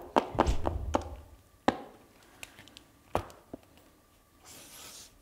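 A few sharp taps and knocks of markers and clipboards being handled on a table, then a soft scratching of a marker writing on paper near the end.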